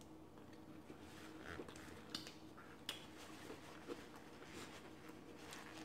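Near silence: room tone with a few faint short clicks and soft rustles, as a paper napkin is used to wipe the hands.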